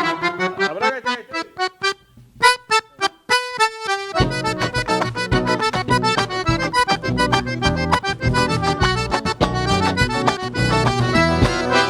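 Accordion (gaita) playing a solo run of quick notes as the introduction, with a live band joining in on bass and rhythm about four seconds in for an upbeat gaúcho dance tune.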